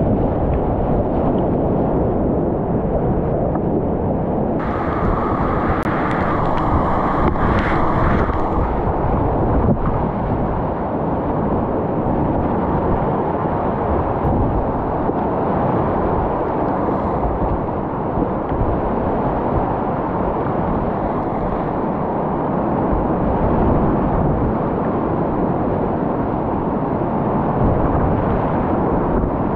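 Whitewater rushing and splashing around a kayak running a rapid, a loud, steady, muffled rush. About five seconds in the splashing turns brighter and sharper for a few seconds, then settles back to the dull rush.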